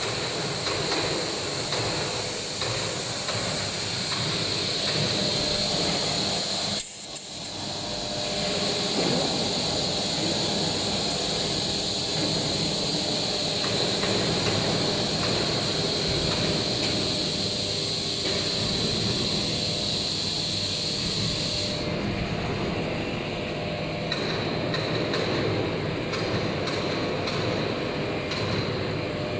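A CNC vertical machining center milling a metal block under flood coolant: steady cutting and spindle noise mixed with the hiss of coolant spray, with a high steady whine that falls away about three-quarters of the way through. The sound dips briefly about seven seconds in.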